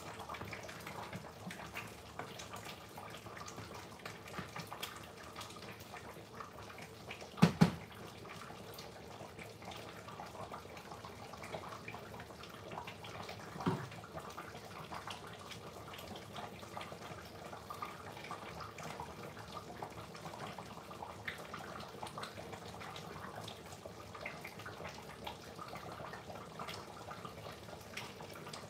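A large steel pot of curry chicken stew simmering, a steady crackly bubbling of the thick sauce. Two sharp knocks in quick succession come a little over seven seconds in, and a lighter one near fourteen seconds.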